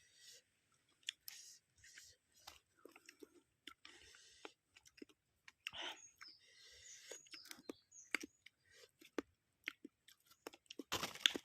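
Close-up mouth sounds of a person chewing food: short, irregular wet clicks and smacks, with a louder cluster near the end.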